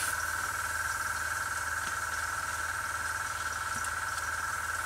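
Airbrush air compressor running with a steady low hum and a constant whine, under a faint hiss of air from the airbrush.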